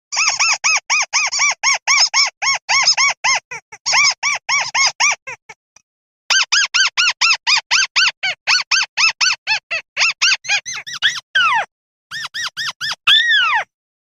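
Buff-banded rail calling: rapid runs of squeaky, arched notes, about four to five a second, in two bursts with a short break between them. The second burst quickens and ends in two long, falling squeals.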